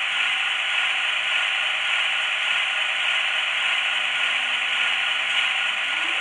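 Sound decoder of an Electrotren H0-scale model of a Renfe 269 electric locomotive, standing still, playing a steady mechanical running noise through the model's small speaker: an even hiss with faint hum tones that never changes.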